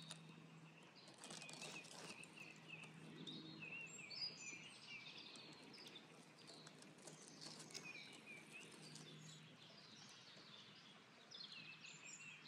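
Faint songbird calls: many short, repeated chirps and twittering phrases, with a faint steady low hum beneath.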